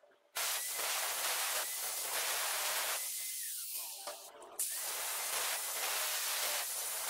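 Angle grinder with an abrasive cut-off disc cutting through square steel tubing: a loud, steady grinding hiss with a faint motor whine. It eases off briefly about halfway through, then bites in again.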